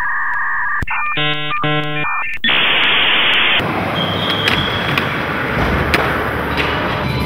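Electronic intro sounds: steady beeps, a buzzing chord pulsing twice, then a second of harsh static. About halfway in it gives way to a skateboard's wheels rolling on a smooth concrete floor, with sharp clicks and knocks of the board.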